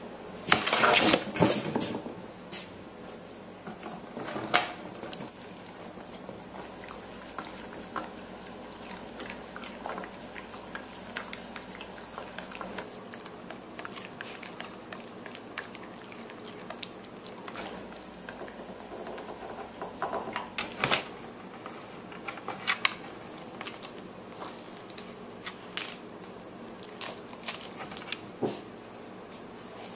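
A dog biting and chewing on a cabbage: scattered crisp crunches and crackles, with a cluster of louder ones about a second in and again around twenty seconds in.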